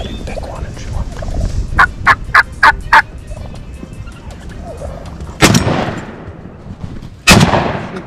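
A burst of five sharp turkey calls in quick succession about a second in. Then two shotgun blasts about two seconds apart, each ringing out briefly: two shooters firing at turkey toms together for a double.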